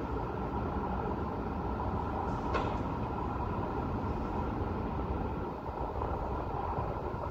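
Steady hum of distant city road traffic, with a faint brief tick about two and a half seconds in.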